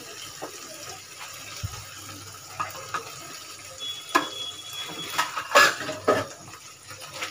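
Thick sauce simmering and bubbling in a nonstick frying pan on a gas burner, as a silicone spatula stirs it, scraping and knocking against the pan several times in the second half.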